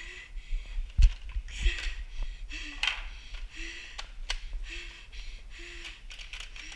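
A person breathing hard close to the microphone, about one breath a second, each breath a short hiss with a slight voiced edge. A few sharp knocks of handling come through, the loudest about a second in.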